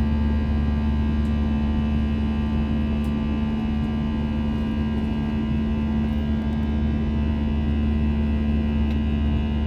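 Steady drone of an airliner heard from inside the cabin: a strong, even low hum with several steady tones above it, unchanging throughout.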